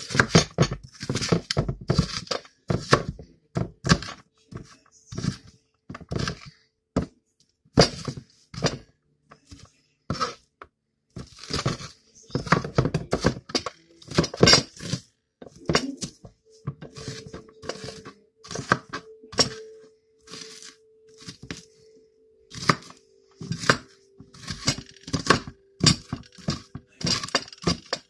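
Kitchen knife chopping onion on a plastic cutting board: quick irregular knocks of the blade on the board, a few a second, in runs with short pauses.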